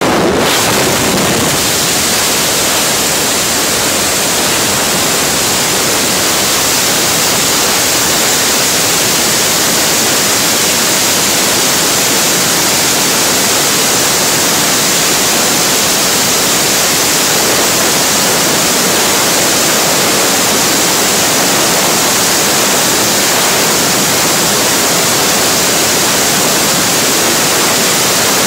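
Freefall wind rushing over a skydiving camera's microphone: a loud, steady roar of air.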